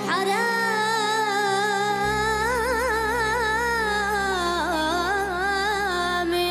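A solo singer holding one long Arabic-style note, ornamented with quick trills about halfway through and dipping in pitch near the end, over a steady sustained instrumental accompaniment.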